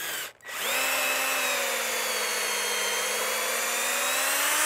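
Cordless drill with a 23/64-inch bit boring a pilot hole for a screw hook into a wooden 4x4 fence post. A short burst of the trigger comes first. From about half a second in, the motor runs steadily under load, its pitch sagging slightly, then rising just before it cuts off near the end.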